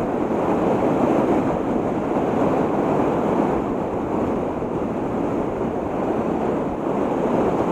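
Steady rush of whitewater pouring over a low river dam and churning below it, with wind buffeting the microphone.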